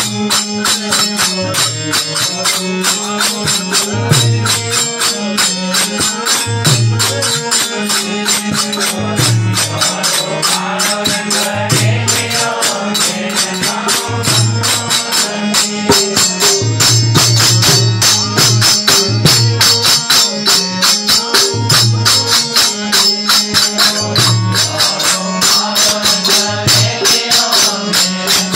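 Instrumental garba music: a harmonium holds steady chords over a tabla beating a fast, driving rhythm with deep bass strokes, while jingling hand percussion keeps up a rapid, even pattern of strikes.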